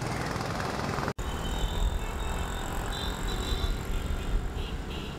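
City street traffic noise, a steady rumble and hiss. The sound drops out for an instant about a second in, then goes on with a heavier low rumble.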